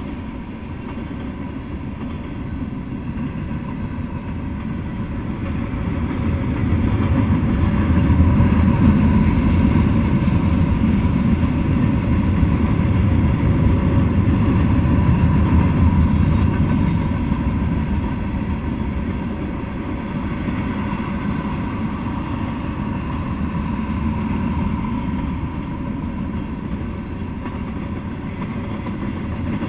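Freight train cars (tank cars, covered hoppers, gondolas, flatcars and boxcars) rolling past on the track: a steady low rumble of steel wheels on rails that grows louder for about ten seconds in the middle and then eases off.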